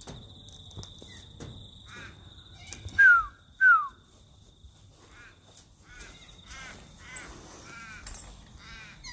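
Wild parrots calling: two loud, falling screeches about three seconds in, then a run of shorter, rising-and-falling calls over the last few seconds. A steady high-pitched whine runs underneath.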